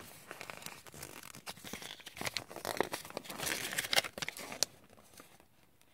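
Folded paper catalog and leaflets being handled and unfolded, crinkling and rustling in irregular crackles, with the clear plastic blister packaging rattling among them. The handling stops near the end.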